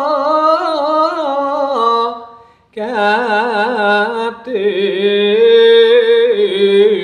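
A man singing a Javanese dalang's suluk solo, in long held notes with wide, wavering vibrato. He breaks for breath about two and a half seconds in, then starts a new phrase that steps down in pitch.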